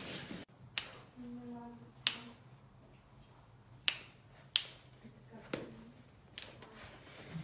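About five sharp, separate pops spread over several seconds, the loudest about two seconds in, from spinal joints cracking during a lower back chiropractic adjustment.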